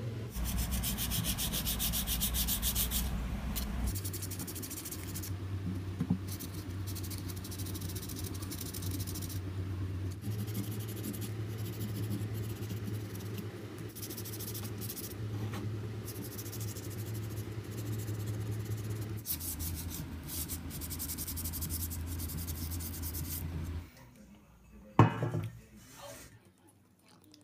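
Sandpaper rubbed briskly back and forth over a carved stone plaque in fast, even scratching strokes, over a low steady hum. Near the end the sanding stops and there is one sharp knock.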